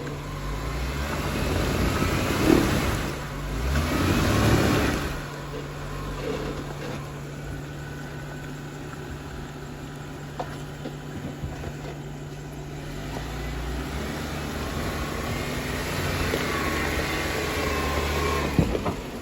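Jeep Wrangler engine revving in two hard surges a few seconds in while crawling over rock off-road, then running steadier under load and building again near the end. A sharp knock comes just before the end.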